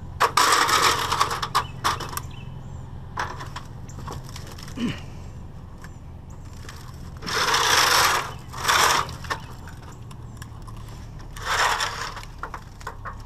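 A long strip of painted sheet-metal trim being bent over by hand, scraping and crumpling against asphalt in three bouts: at the start, about seven to nine seconds in, and near the end.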